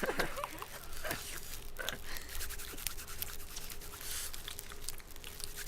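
Studio-made foley: a run of small clicks and scraping sounds, with a few short vocal sounds in the first two seconds.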